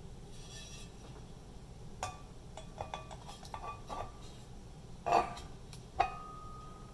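Metal turntable platter being set down on its spindle and handled: a run of light metallic clinks and taps, then two louder knocks about a second apart. The last knock leaves the platter ringing with a thin steady tone.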